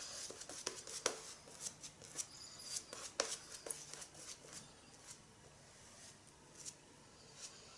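Synthetic shaving brush working shaving cream lather over a stubbled face: faint, irregular soft crackling and swishing of the bristles through the lather, busier in the first few seconds and thinning out in the second half.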